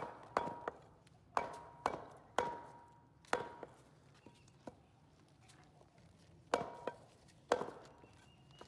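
Butcher's knife chopping goat fat and meat on a wooden log chopping block. Sharp chops come in uneven clusters, several followed by a brief metallic ring from the blade, with a pause of about two seconds before two more chops near the end.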